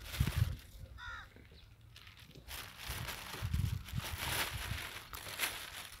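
Puppy chewing and crunching food from the ground in irregular bursts, with a short bird call about a second in.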